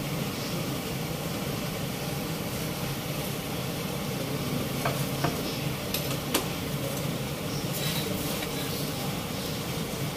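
Ghee-fried paratha sizzling steadily on a hot iron tawa, with a few light clicks of a utensil against the pan around the middle.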